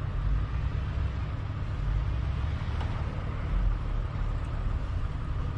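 A motor vehicle running close by: a steady low rumble with a faint steady whine above it.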